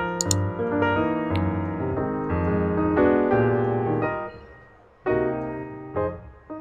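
Background piano music: a run of single notes and chords, fading briefly about four seconds in before picking up again.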